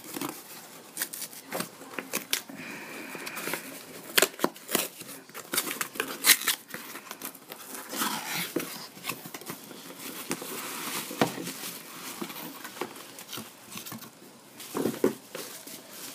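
Cardboard shipping box being torn open by hand: cardboard ripping and flaps rustling, with many irregular sharp clicks and knocks as the box is handled.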